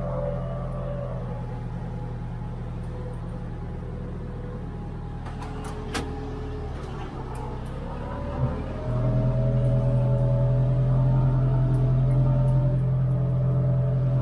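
International 1455 tractor's diesel engine running steadily, picking up revs and getting louder about nine seconds in. A sharp click comes about six seconds in and a knock just before the engine picks up.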